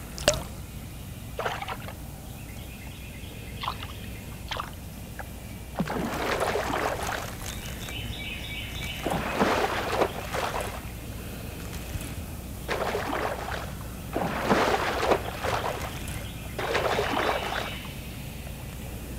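Water splashing in about five short bursts a few seconds apart, after a sharp click right at the start. Behind them a rapid pulsing animal call comes and goes.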